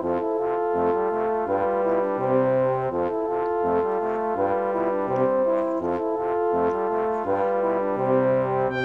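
Background music: brass instruments playing held notes over a bass line that moves in short steps.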